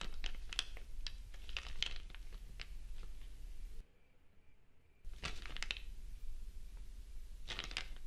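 Paper rustling and crinkling as an envelope is opened and a folded letter is pulled out and unfolded: a run of crisp rustles, a sudden drop to near silence about four seconds in, then two more short bursts of paper handling.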